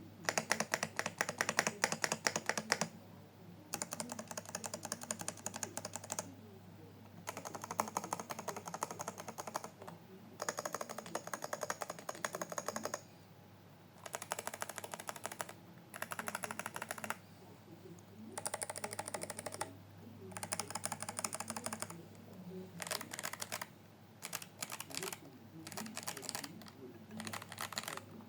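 Computer keyboard being typed on fast, in runs of rapid key clicks lasting a second or two, with short pauses between the runs.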